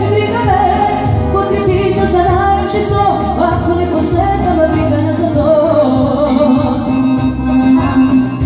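Live Serbian folk music: two accordions playing the melody with a Korg keyboard accompanying, over a steady beat.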